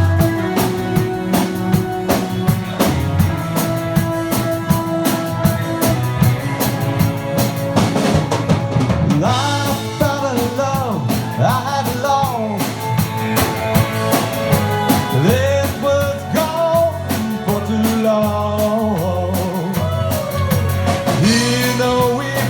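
Rock band playing an instrumental break: drum kit with rimshots and bass under a lead melody that bends in pitch from about nine seconds in.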